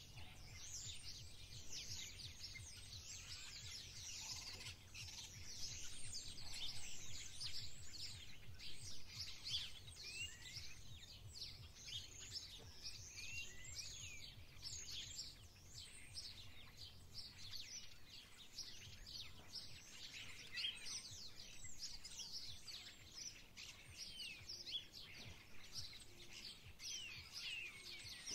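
Garden birds singing, a dense chorus of overlapping chirps and trills from several birds, over a faint low rumble.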